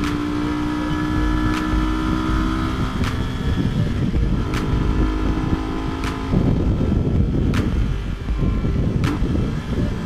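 Yamaha R15 sport motorcycle at speed, its engine holding a steady note. About six seconds in, the engine tone drops away and wind rush on the microphone takes over. A faint tick recurs about every second and a half.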